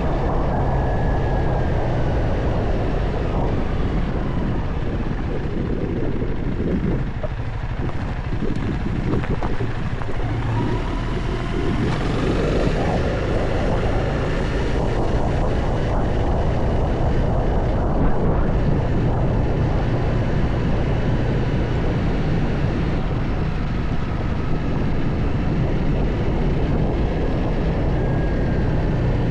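Honda CRF300L's single-cylinder four-stroke engine running while riding off-road, revs rising and falling a few times, with wind noise on the microphone.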